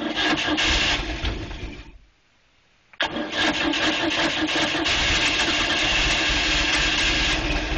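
A 1988 Sea Sprite's four-cylinder inboard/outboard engine cold-starting after sitting nearly a month. It runs for about two seconds and cuts out. About three seconds in it fires again and keeps running.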